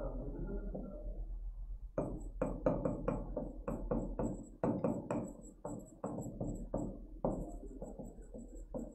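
Stylus or marker tapping and knocking against the writing surface of an interactive teaching board during handwriting: a quick, irregular run of short knocks, about four a second, starting about two seconds in, over a steady low electrical hum.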